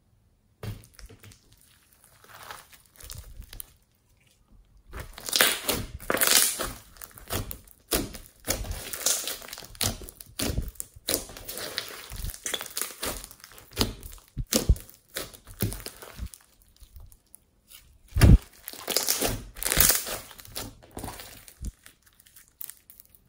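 Glossy slime mixed with beads and glitter being squished, pressed and stretched by hand: a string of irregular squishes of varying loudness, with one loud thud about 18 seconds in.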